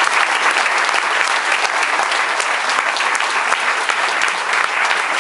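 Audience and panel applauding: many people clapping in a dense, steady round of applause.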